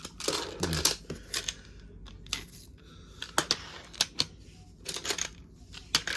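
Plastic magnetic building tiles clicking and clacking as they are snapped together and set down: a string of sharp, irregular clicks.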